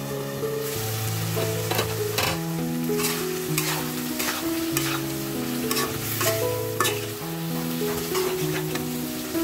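A metal spatula stirs and scrapes chicken curry with potatoes in an aluminium pot, the curry sizzling as it cooks. The sizzle starts under a second in. Background music with a slow melody plays underneath.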